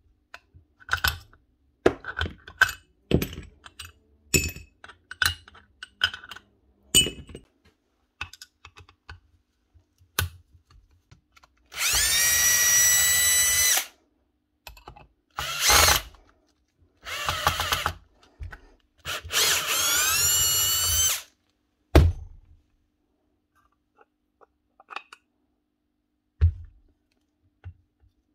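Cordless drill-driver running in four short bursts of one to two seconds, a whine that rises in pitch as it spins up, backing out the screws of a hammer's gearbox housing. Before the bursts come light clicks and knocks of metal parts being handled on the bench.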